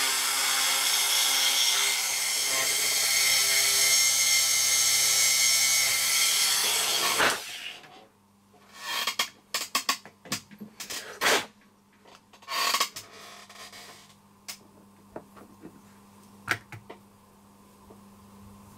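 Small electric hobby drill running at speed with a high whine, drilling out a hole in the model blocked by a leftover casting lump. It stops suddenly about seven seconds in, followed by scattered clicks and taps of small parts being handled.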